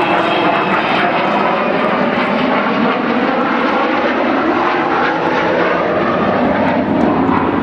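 Avro Vulcan B.2 bomber's four Rolls-Royce Olympus turbojets heard in flight during a display, a loud, steady jet noise whose tones slowly slide as the aircraft moves past.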